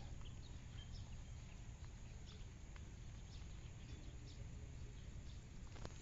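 Faint outdoor background noise: a steady low rumble with scattered brief, faint high chirps or ticks.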